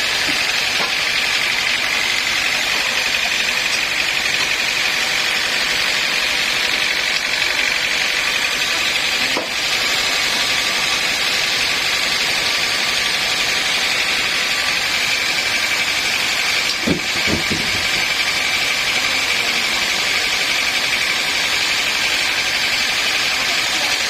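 Sawmill machinery running steadily, a constant mechanical noise with a high whine, and a short knock about two-thirds of the way through.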